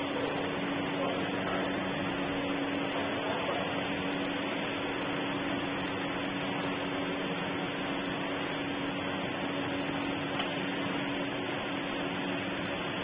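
Continuous prawn-chip frying line running: a steady machine hum over an even mechanical noise.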